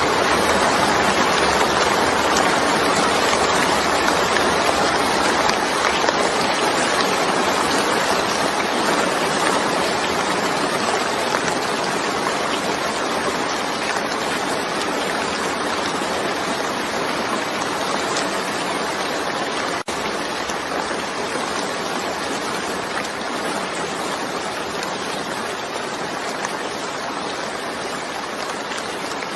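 Steady rain falling onto a wet, puddled surface: an even hiss of countless splashing drops. It grows gradually a little quieter, with a momentary dropout about twenty seconds in.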